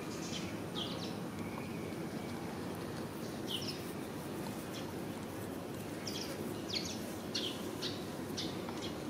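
Small birds chirping: short, high, falling chirps, several of them, bunched near the start and again in the second half, over a steady low background noise.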